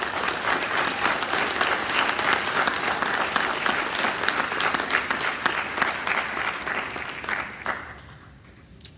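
Audience applauding, a dense run of many hands clapping that dies away about eight seconds in.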